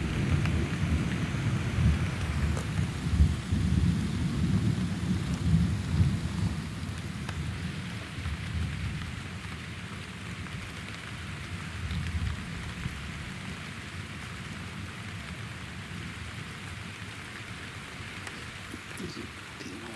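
Thunder rumbling and dying away over the first six or seven seconds, with steady rain falling throughout.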